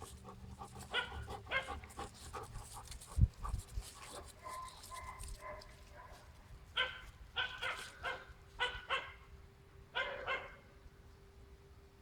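Dogs barking and yipping in short calls, a run of them about seven to nine seconds in and two more around ten seconds, with a single low thump about three seconds in.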